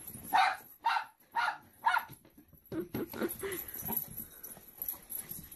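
Dog giving four sharp, high-pitched barks in quick succession, about two a second, then softer, lower whining: excited greeting of a returning owner.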